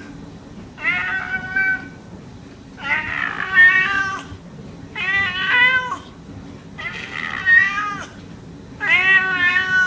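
Domestic cat meowing over and over: five long meows about two seconds apart, each lasting about a second.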